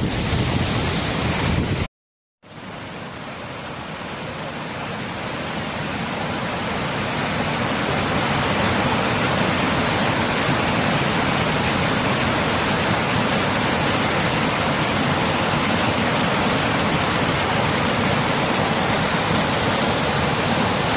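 Whitewater creek rushing over boulders, a steady dense rush of water. It drops out for a moment about two seconds in, then swells back up over several seconds and holds steady.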